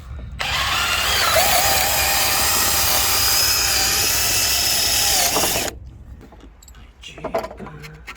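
Hychika DD18F cordless drill driver running for about five seconds at a steady whine, then cutting off abruptly, followed by a few faint knocks.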